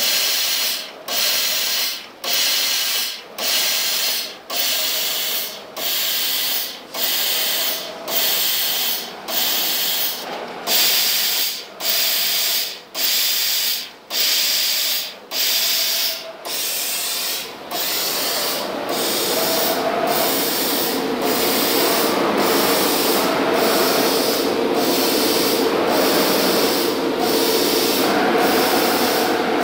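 Laser cutting machine cutting aluminium sheet: the assist-gas hiss from the cutting head comes on and cuts off about once a second as small holes are cut one after another. After about 18 s it changes to a continuous hiss with a steady hum as a longer cut runs.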